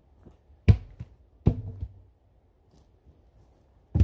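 Cut logs dropped onto other logs: a sharp wooden knock less than a second in, a second one soon after with a short ringing clunk, and a third near the end.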